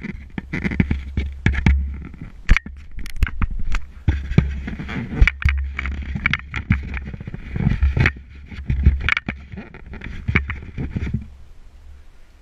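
A person squeezing through a low, partly flooded mine entrance: repeated scraping and knocking against rock, with heavy rumbling handling noise on the camera. It stops abruptly about eleven seconds in.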